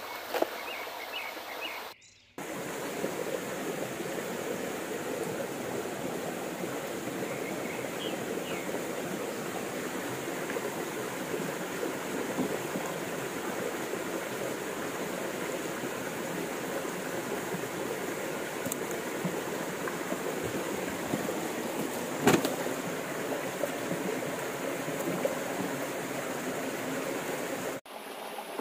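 Steady rushing of a flowing creek, with a few faint high chirps near the start and one sharp knock about 22 seconds in.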